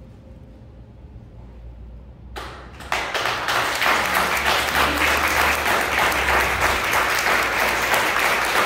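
The last piano chord dies away faintly, then about two and a half seconds in an audience starts applauding and keeps clapping steadily at full strength.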